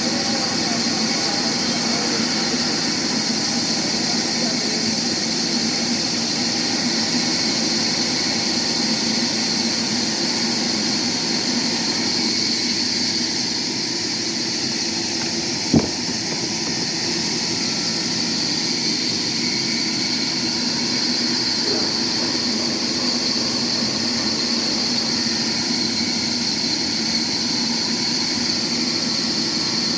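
Sawmill machinery running steadily, a constant mechanical drone with a strong high hiss, broken once about halfway by a single sharp click.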